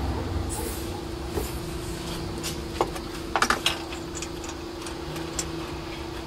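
Light scattered clicks and clinks of a hand tool against metal as it is worked down into the engine bay, a small cluster of them about three seconds in, over a steady faint hum.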